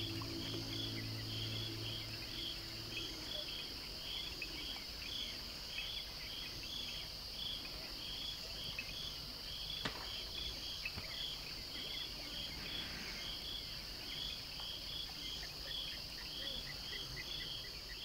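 Night insect chorus: a steady high shrill drone with a regular cricket-like chirp repeating about two or three times a second. A held musical tone dies away in the first few seconds, and a single sharp click sounds about ten seconds in.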